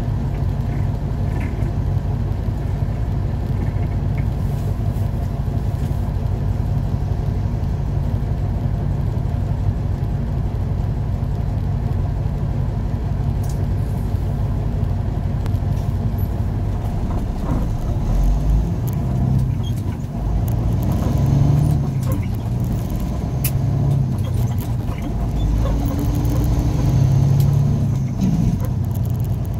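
Truck engine idling steadily at a stop, then pulling away about eighteen seconds in, its low engine sound swelling and falling back in repeated surges as it accelerates.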